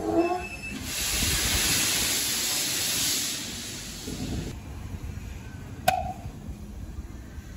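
Steam hissing from the cylinder drain cocks of Talyllyn Railway No.1 'Talyllyn', an 0-4-2 saddle-tank narrow-gauge steam locomotive, as it moves off light engine, over a low rumble. The hiss cuts off suddenly, and a single sharp knock follows about a second and a half later.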